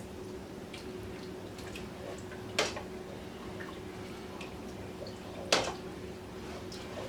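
A spoon stirring the gravy base in a pot on the stove, with small scraping ticks and two sharp knocks against the pot, about two and a half and five and a half seconds in, over a steady low hum.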